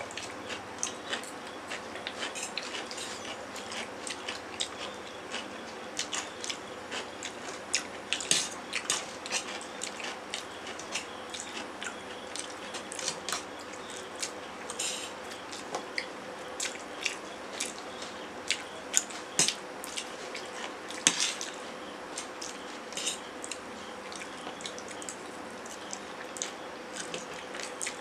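Two people eating instant noodles with forks from steel plates: frequent short clicks and scrapes of the forks on the plates, mixed with chewing and slurping of the noodles. A faint steady hum runs underneath.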